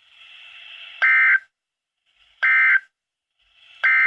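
Three short bursts of EAS/SAME digital data tones from a NOAA Weather Radio broadcast, about a second and a half apart: the end-of-message code that closes the warning. Faint radio hiss lies between the bursts.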